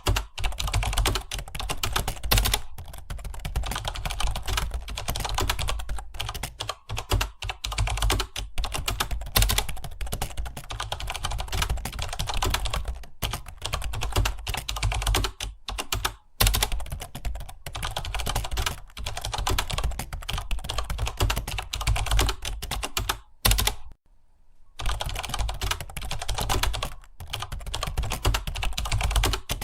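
Fast, continuous typing on a computer keyboard, with a brief pause about 24 seconds in.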